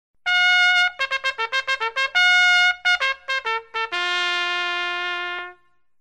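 Trumpet fanfare: held notes alternating with runs of quick repeated notes, ending on a long, lower held note that cuts off about five and a half seconds in.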